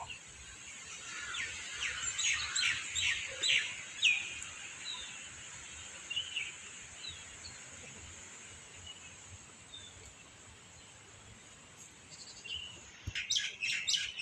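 Birds chirping: a quick run of short chirps about two seconds in, a few scattered calls after, and another burst of chirps near the end, over a steady high hiss.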